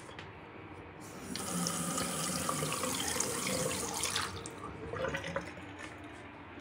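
Bathroom tap turned on, water running into the sink for about three seconds before it is shut off, with a few light clicks after.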